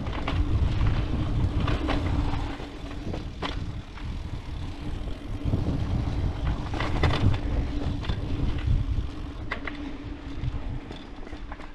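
Mountain bike rolling down a dirt trail: heavy wind and rolling rumble, a steady hum, and scattered clicks and rattles from the bike over bumps. It is loudest early and again in the middle, easing toward the end.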